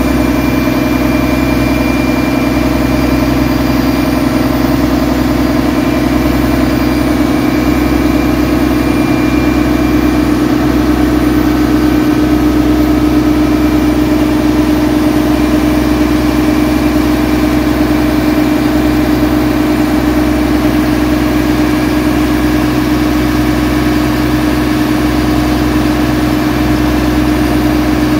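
Boat engine running steadily while under way, heard from on board as a loud, even drone with a strong steady hum.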